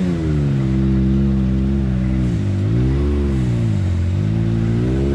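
Can-Am Maverick X3 side-by-side engine, heard from inside the cab, revving up and down as the throttle is worked. Its pitch drops and climbs again about three times and rises near the end.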